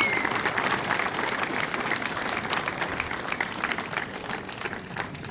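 Audience applauding, a steady patter of many hands clapping that thins out toward the end, with a short high whistle right at the start.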